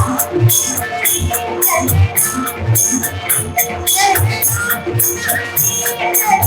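Devotional bhajan music: held keyboard-like tones under a steady beat of jingling hand cymbals and low drum strokes, with voices singing along.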